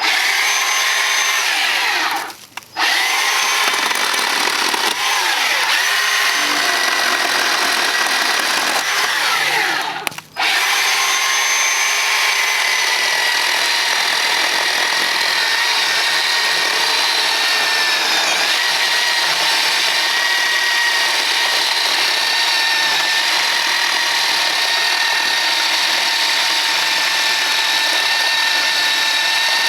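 Bauer 20V cordless chainsaw running with a steady, high electric-motor whine as it cuts through a thick log. The trigger is let go and squeezed again twice, about two and a half and ten seconds in.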